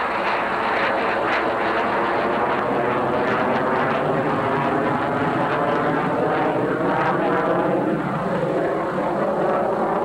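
Truck engine of an aerial lift boom truck running steadily at a constant speed.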